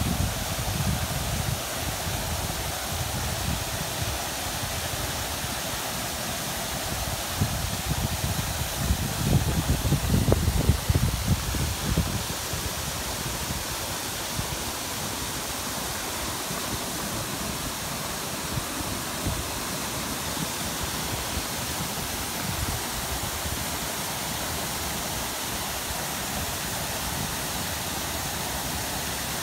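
Fountain jets spraying and splashing down into a reflecting pool, making a steady rush of falling water. A stretch of low rumble runs a little before the middle.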